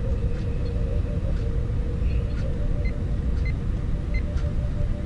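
Steady low rumble with a constant hum, and faint light ticks repeating about every half second or so from about halfway through.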